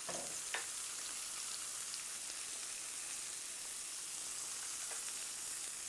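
Butter and brown sugar sizzling steadily in a hot cast-iron skillet under pineapple rings, with a faint tick about half a second in as a maraschino cherry is set into the pan.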